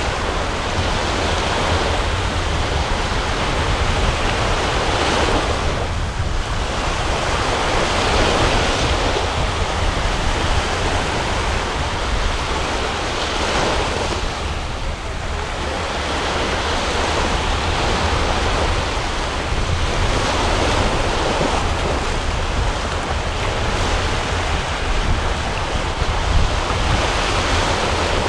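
Wind buffeting the microphone, with heavy low noise, over steady surf that swells and eases every few seconds.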